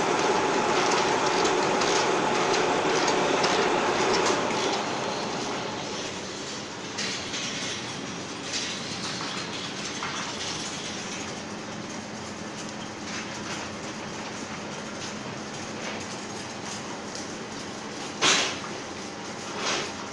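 Eye-drop bottle filling and capping machine running: a steady mechanical clatter of many small rattling clicks as plastic bottles and dropper tips move along the line. It is louder for the first four or so seconds, and a single sharp knock comes near the end.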